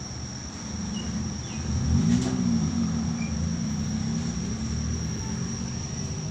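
A motor vehicle's engine running, its pitch rising and then falling about two seconds in, with a steady high-pitched whine underneath.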